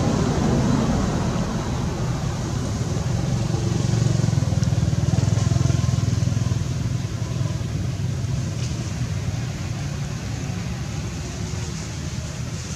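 Low, steady rumble of a motor vehicle engine, growing louder about four seconds in and easing off after about seven seconds.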